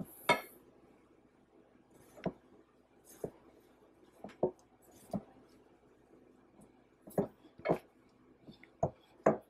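Hands scooping, folding and pressing chicken in a glass bowl of seasoned flour: soft rustling of the flour, with about ten short sharp knocks against the bowl at irregular intervals.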